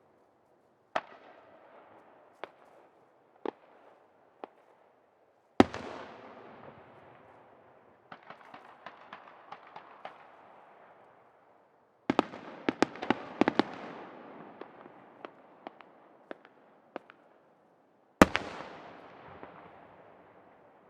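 Aerial fireworks shells bursting: four sharp booms, each trailing off in a long echo, with two runs of rapid crackling pops between them.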